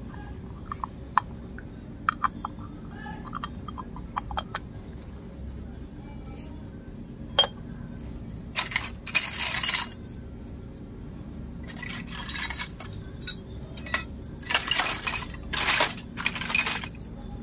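Miniature stainless-steel toy cookware clinking: small light clicks and taps as the lid of a tiny pressure cooker is handled, then longer scraping clinks about halfway through and again near the end as the metal pieces are set down on a concrete floor.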